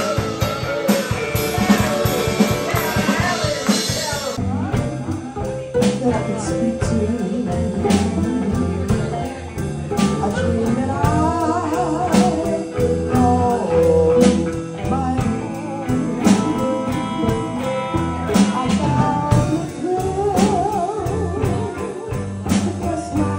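Live band music in a New Orleans party-band style: a singer with a wavering vibrato over bass, drums, electric guitar and fiddle. There is an abrupt cut to a different performance about four seconds in.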